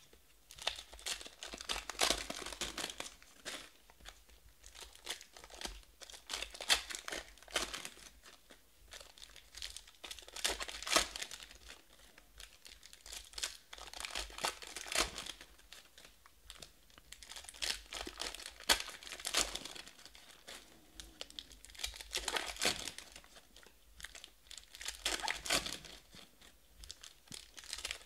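Foil trading-card pack wrappers being torn open and crinkled by hand, in crackly bursts every few seconds.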